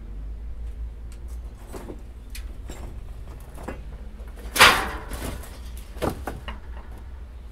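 Footsteps crunching and scuffing over broken concrete rubble, with a louder scrape about halfway through and another shortly after, over a steady low rumble.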